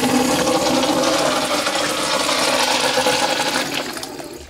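Kohler high-efficiency urinal (about 0.125 gallon per flush) flushing: a loud, steady rush of water through the bowl that dies away near the end.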